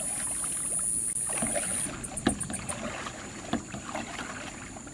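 Oar strokes paddling a small plastic rowboat across still water: irregular dips and splashes with the odd knock of the oar against the hull. A high steady hiss in the background breaks off about two seconds in, followed by a few quick pulses.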